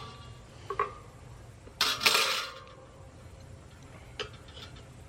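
Metal tire irons clinking and scraping against the wheel rim while a tire is levered on by hand, with a short knock, then a louder scrape about two seconds in, and a small click near the end.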